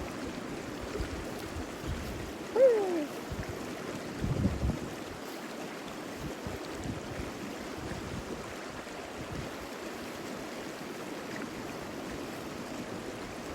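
Steady rushing of a flowing stream. A short falling call cuts in about two and a half seconds in, and there is a low thump about four and a half seconds in.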